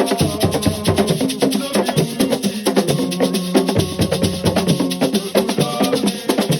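Assiko music: fast, dense hand percussion with shakers and drums driving a steady rhythm, over pitched melodic lines.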